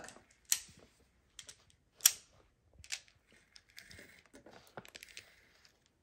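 Gemmicc plastic magnetic building tiles clicking as they snap together and are set down on a tabletop: a few scattered sharp clicks, the loudest about two seconds in.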